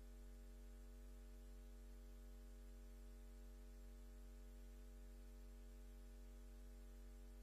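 Near silence: a faint steady electrical hum with light hiss.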